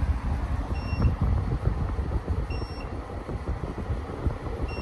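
Midea U-shaped 10,000 BTU window air conditioner running with a steady low rumble, and three short electronic beeps from its controls as settings are pressed, about a second in, midway and near the end.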